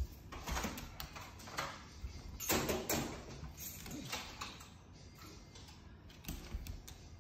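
Scattered soft taps and scuffs of pets' paws and claws moving on a hardwood floor, with a denser cluster a little over two seconds in.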